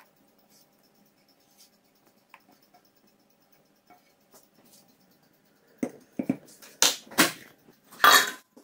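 Cooking noises: faint light handling, then from about six seconds in a quick run of short, loud knocks and noises. The loudest and longest comes near the end.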